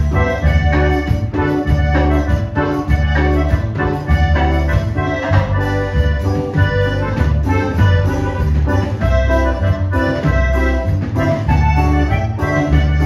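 Dance music with a steady beat and a strong bass.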